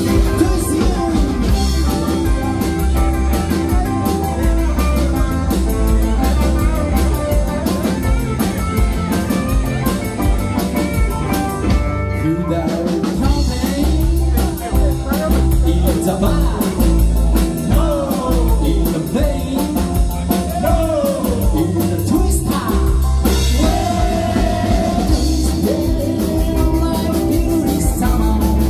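Live rock band playing a song: a lead vocalist singing over electric guitars, bass guitar and a drum kit with a steady beat, all amplified through the PA.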